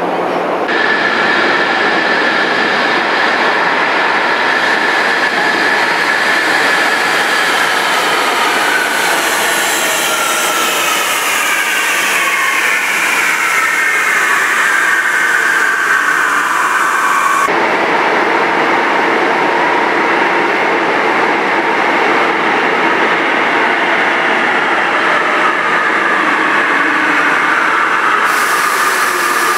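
A Panama Metro electric train pulls into the station: steady rolling noise with a whine that falls in pitch as the train slows. After an abrupt change, a second arrival starts with the same falling whine near the end.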